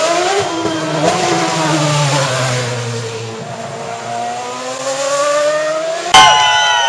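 Stunt motorcycle engine revving, its pitch rising and falling. About six seconds in it turns suddenly much louder, then drops in pitch.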